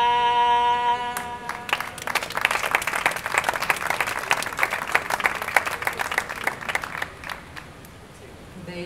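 A woman's unaccompanied voice holds the final sung note of an improvised Basque verse for about a second and a half. Then the audience applauds for about six seconds, and the clapping fades out near the end.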